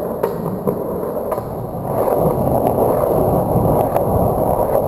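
Skateboard wheels rolling steadily over a concrete garage floor, with about five sharp clicks as the wheels hit joints and rough spots.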